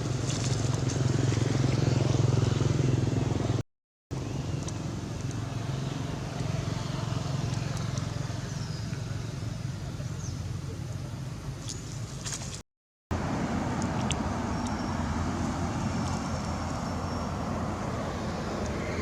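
Outdoor background of vehicle engines running, a steady low hum that is strongest for the first few seconds, with faint high chirps later on. It drops out to silence twice, briefly.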